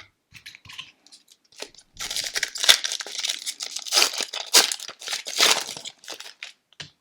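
Wrapper of a hockey trading-card pack being torn open and crinkled: a few light handling clicks, then about four seconds of dense crinkling that tails off near the end.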